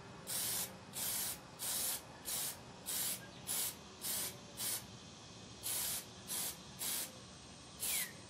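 Aerosol can of Plasti Dip rubber coating sprayed in about a dozen short hissing bursts, each under half a second, with a brief pause about halfway through: back-and-forth passes coating a small camera.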